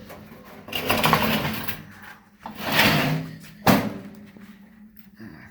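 An air conditioner's empty outer case being turned around by hand: two stretches of scraping and rubbing, then a sharp knock a little past halfway.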